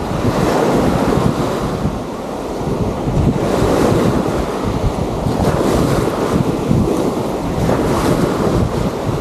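Wind buffeting the microphone in gusts, over the steady wash of sea waves on the shore.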